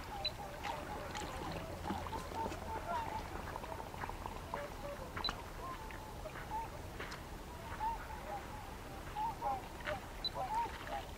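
A flock of waterfowl calling continually, many short overlapping calls, with scattered brief clicks.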